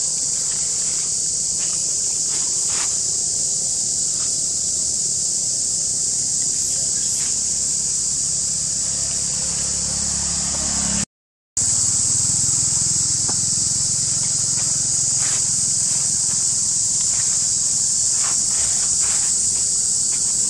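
Steady, loud, high-pitched drone of insects calling in the forest, unbroken except for a drop-out of about half a second midway, with a few faint clicks beneath it.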